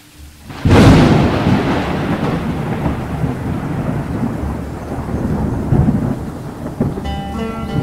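A sudden clap of thunder about half a second in, then a long rolling rumble with steady rain. Near the end, music begins to sound over the rain.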